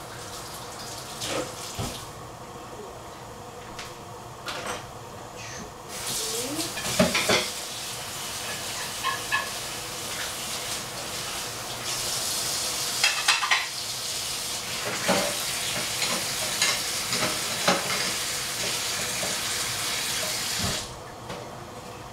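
Kitchen tap water running into a sink during washing up, with dishes knocking now and then. The water comes on about a quarter of the way in and stops abruptly shortly before the end.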